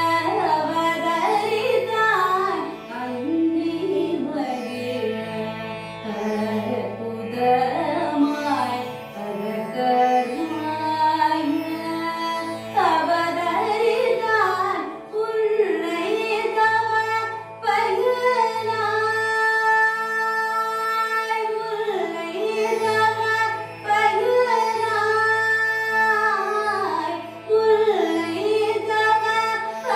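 A woman singing a Carnatic melody, her voice sliding and bending between notes, over the steady drone of a plucked tanpura.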